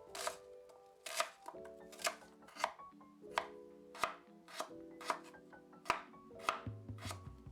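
Knife chopping vegetables on a cutting board: about a dozen sharp strokes at a steady, unhurried pace, with soft background music underneath.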